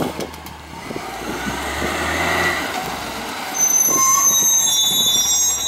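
Peterbilt 348 CNG garbage truck with a McNeilus rear-loader body: a rising rush of engine noise, then from about two-thirds of the way in a loud high-pitched squeal of the brakes as the truck moves off to its next stop.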